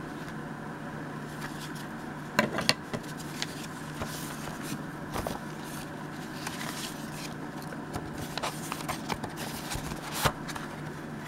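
Paper envelopes and printed card stock being handled and shuffled on a cutting mat: scattered rustles, scrapes and light taps, with a few louder ones about two seconds in and one near the end, over a steady low hum.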